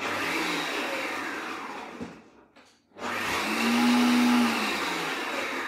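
Magimix Cook Expert food processor's blade motor pulsed twice to chop onion, garlic and ginger. The first burst lasts about two seconds. After a short pause, a second burst of nearly three seconds has a hum whose pitch rises and then falls.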